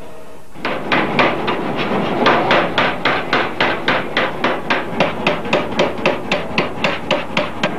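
Forging hammer strikes on red-hot iron, in an even rhythm of about four blows a second, starting about half a second in and going on to near the end.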